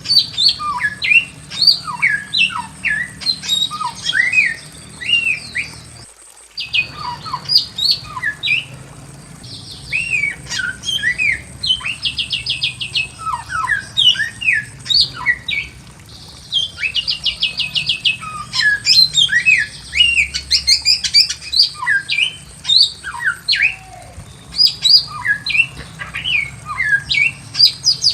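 Bare-throated whistler (samyong) singing a fast, varied run of short whistled notes that sweep up and down, broken by several quick rattling trills. A faint steady high whine runs beneath.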